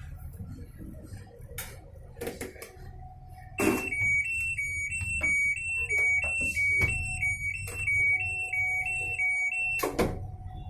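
Videocon Digi Zaara Plus washing machine sounding its error alarm: a loud two-tone electronic beep alternating high and low about twice a second for some six seconds, opened and closed by a sharp click, after a few lighter clicks of the lid being handled. The alarm flags the E3 error, which the technician puts down to a broken lid (door).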